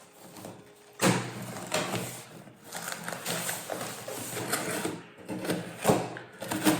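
Parcel packaging being handled and opened: irregular rustling and crackling that starts sharply about a second in and keeps going.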